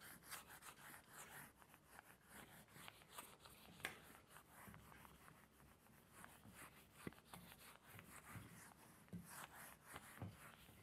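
Faint repeated rubbing strokes of a whiteboard eraser wiping marker off a whiteboard.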